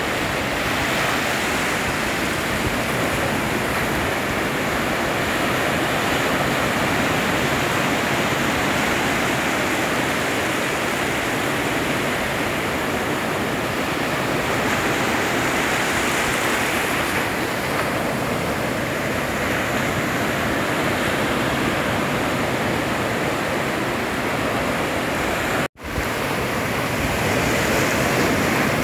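Ocean surf breaking and washing up the beach, a steady rushing of waves, broken by a split-second gap about three-quarters of the way through.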